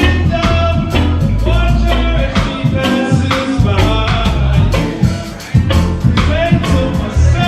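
Roots reggae band playing live, with a heavy bass line under regular drum hits and sustained instrumental melody lines.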